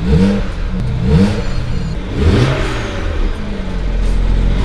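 Turbocharged 3.0-litre straight-six of a BMW E92 335i, freshly flashed with a stage 2 MHD tune, blipped three times from idle, heard from inside the cabin. The third rev, about two seconds in, is the biggest, and the engine settles to a steady idle for the last couple of seconds.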